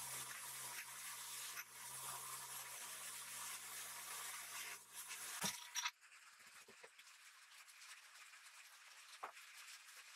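Polishing motor spinning a cloth buffing wheel with a steady hum and a hiss as a small metal blowtorch part is pressed against it. The sound cuts off abruptly about six seconds in, leaving only faint handling clicks.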